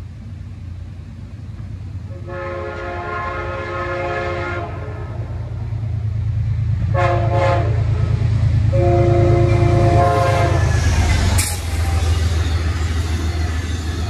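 Amtrak P32AC-DM diesel locomotive sounding its horn as the train approaches: a long blast, two short toots, then another long blast, over the rising rumble of the diesel engine. The locomotive passes about eleven seconds in, and the passenger cars then roll past with a steady low rumble.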